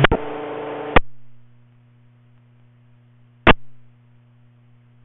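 Radio scanner receiving school-bus two-way radio traffic: a transmission ends in a short hiss of static that cuts off with a click about a second in, then one brief crackle of static comes about three and a half seconds in. A steady low mains hum runs underneath.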